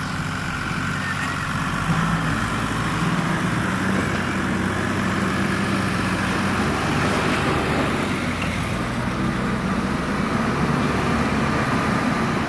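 Heavy diesel engine running steadily under load, its pitch rising and falling slightly.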